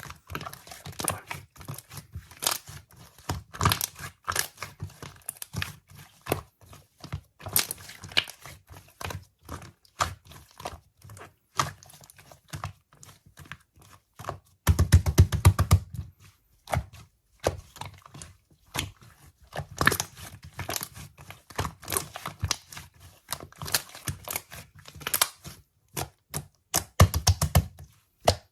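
Hands handling packaging material: repeated tearing and crinkling with taps and thunks, in quick, uneven bursts. The crackling is densest and loudest about halfway through and again near the end.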